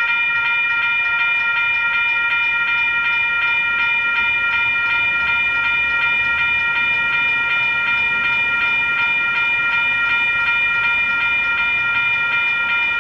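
Railroad grade-crossing warning bell ringing in a rapid, even repeating ding, the crossing active to warn of an approaching train.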